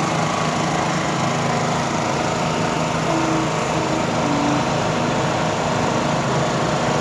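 A small engine running steadily with an even hum, with market background noise.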